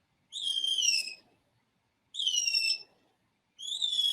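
An analog electronic birdsong circuit imitating a blue jay, built from five astable multivibrators and a modified Hartley oscillator, sings through its speaker. It gives three chirps of about a second each, every one falling in pitch, with short pauses between. The last chirp runs on at the end.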